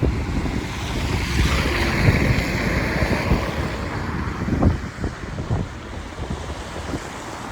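Strong wind buffeting the microphone in irregular gusts, a heavy low rumble with a rushing hiss that swells about two seconds in.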